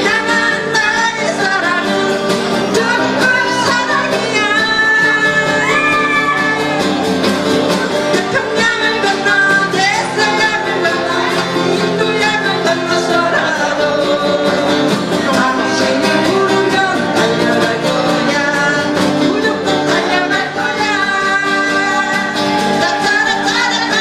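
An acoustic guitar group strumming and singing a Korean trot medley into microphones, amplified through a small PA speaker. Several acoustic guitars keep up a steady strum under a sung melody.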